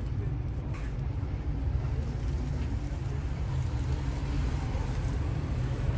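Steady low rumble of outdoor street background noise, with no distinct single event standing out.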